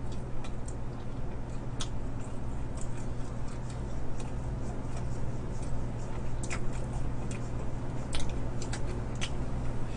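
Close-miked eating sounds of fried chicken being chewed: irregular wet smacks and clicks from the mouth, over a steady low hum.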